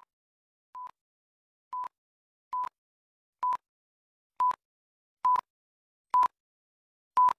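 Film-leader countdown beeps: a short single-pitched high beep about once a second, each one louder than the last, with a faint click at each beep.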